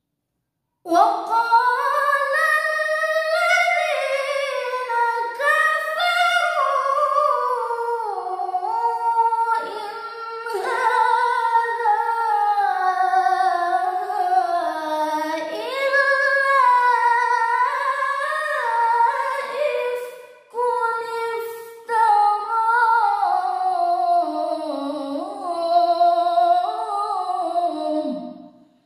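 A woman's unaccompanied Quran recitation in melodic tilawah style: long sung phrases that slide and turn up and down in pitch, broken by a few short breaths.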